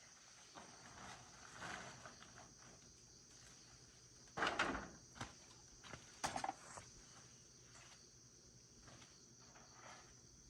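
Steady high-pitched chirring of crickets or other insects, with scattered faint knocks and rustles and two louder knocks near the middle.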